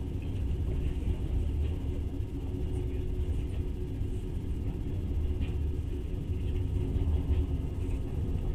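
Steady low rumble of a moving passenger train, heard from inside the carriage as it runs along the rails.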